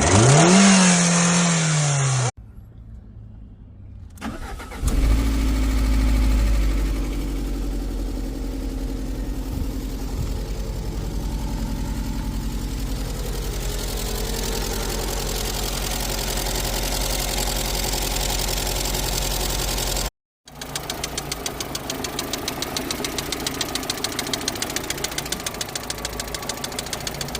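Lada Priora's VAZ-21127 1.6-litre 16-valve four-cylinder engine running: it revs up and drops back at the start, then idles steadily. After a short break near the 20-second mark, a fast, even tapping sounds over the idle, which the owner suspects may be the hydraulic lifters.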